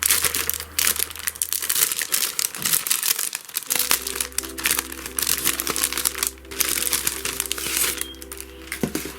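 Crinkling and rustling of paper and its packaging as a pack of printed craft papers is opened out and handled, a dense run of quick crackles.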